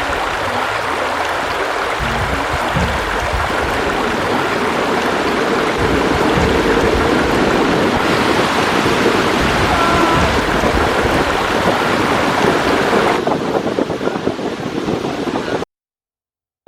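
Water running in a steady rush that cuts off suddenly near the end.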